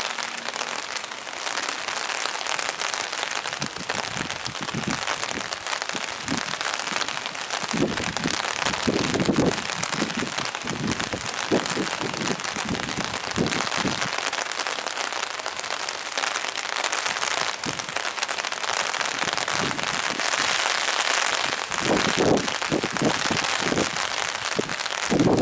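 Steady rain falling, an even hiss, with wind now and then buffeting the microphone, most around eight seconds in and near the end.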